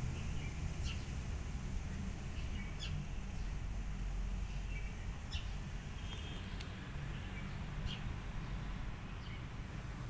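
Outdoor ambience: a steady low rumble with brief high chirps every one to two seconds.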